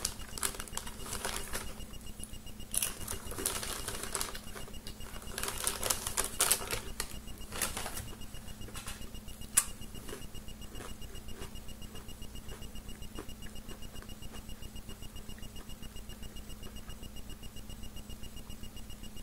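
Crinkling of a plastic cracker sleeve and crunching of Wheat Thins crackers in bursts for the first eight seconds or so, with a sharp click a little before ten seconds in. A faint, rapid, high beeping repeats steadily throughout.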